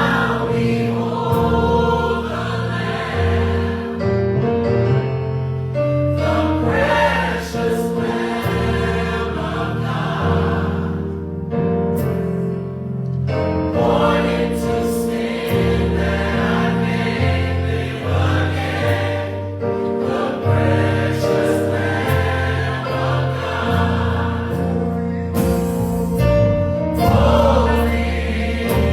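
Gospel choir singing, in phrases with brief breaks in the upper voices over steady low sustained notes.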